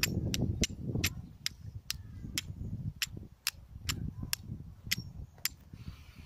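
Flint and steel being struck together, a run of about fifteen sharp scraping clicks at roughly three a second that stop about five and a half seconds in: repeated strikes to throw sparks onto char cloth and jute tinder.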